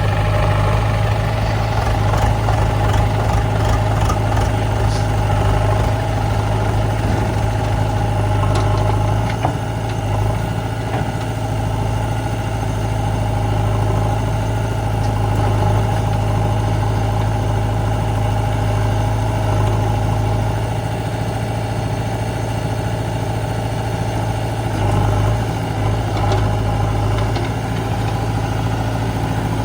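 Heavy diesel machinery engine running steadily near idle, a constant low, even drone with small changes in load.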